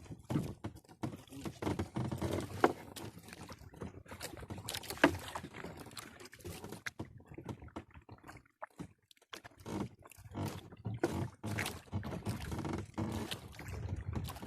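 Irregular knocks, clatters and rustling on a small fishing boat as a gill net is paid out over the side, with a couple of sharper knocks.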